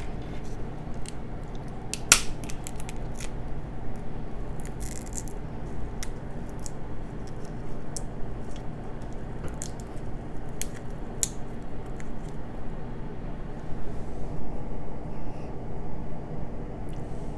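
Crab leg shells being cracked and snapped apart by hand, with sharp cracking clicks scattered throughout, the loudest about two seconds in. A steady low hum runs underneath.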